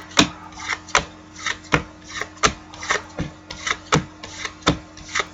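Football trading cards being flipped through one at a time: a sharp snap every half second or so as each card is slid off the stack, with a soft rubbing of card on card between snaps.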